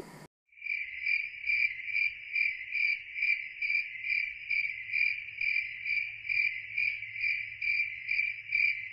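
A cricket chirping steadily, about two and a half even, high-pitched chirps a second.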